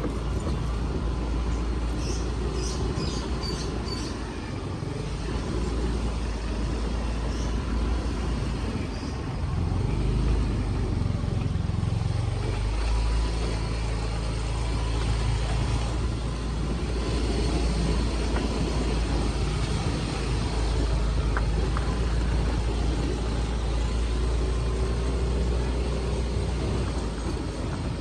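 Motorcycle engine running while riding along, with wind rushing over the microphone. The engine note rises and shifts about ten to thirteen seconds in.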